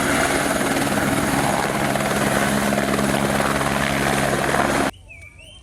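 Helicopter sound: a steady rotor-and-engine drone that cuts off suddenly about five seconds in. It is most likely a toy helicopter's recorded sound effect.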